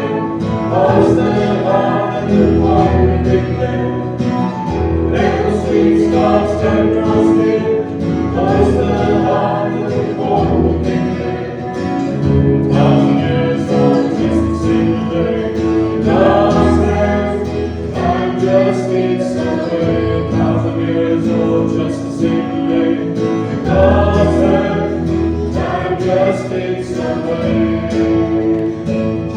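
Choir singing a hymn with instrumental accompaniment.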